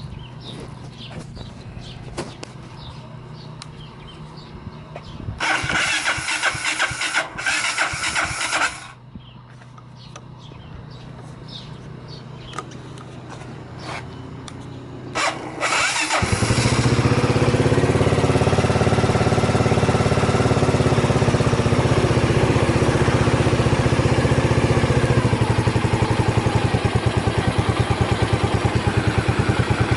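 Honda GB250 Clubman's single-cylinder four-stroke engine, breathing through an aftermarket Peyton Place muffler, being started. It is cranked for about three seconds without catching, then cranked again and fires about sixteen seconds in, settling into a steady idle.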